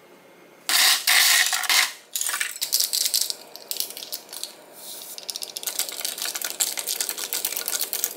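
Crinkling of a drink-mix packet being torn open, then rapid clinking of ice cubes against a glass mug as the drink is stirred, the clinking densest near the end.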